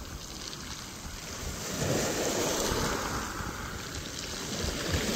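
Sea waves washing in, with wind buffeting the microphone; the wash swells louder about two seconds in and then eases.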